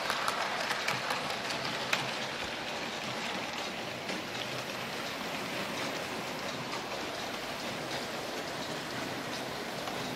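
00 gauge model trains running on the layout's track: a steady rolling whirr of wheels and motors, with a few sharp clicks as the wheels cross rail joints and points in the first couple of seconds.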